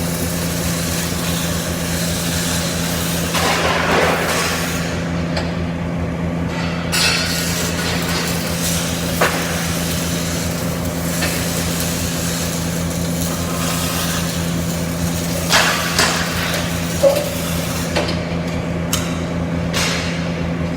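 CO2 (MIG) welding work: a steady machine hum under a crackling hiss, with a few sharp metal knocks near the middle and end.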